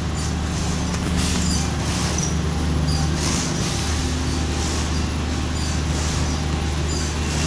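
Four-colour central-impression flexographic printing press running, a steady mechanical drone: a low hum under an even hiss.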